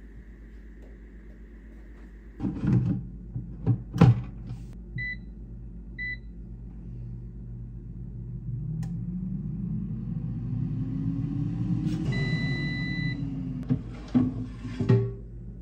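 Cosori air fryer on its burn-off test run: clunks of the basket being handled, two short beeps from the control panel, then the fan whirs up in pitch over a few seconds. A longer beep sounds with a rush of air, the fan winds back down, and there are more clunks near the end.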